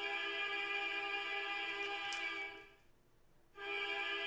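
Background music: a sustained chord of held notes, steady in pitch, that drops out for about a second midway and then resumes.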